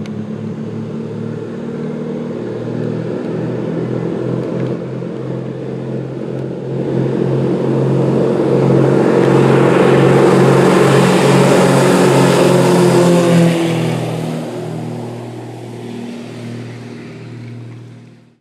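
Twin-engine propeller airplane running its engines on the runway, a steady engine drone that grows into a loud propeller rush as it passes about halfway through, then fades away.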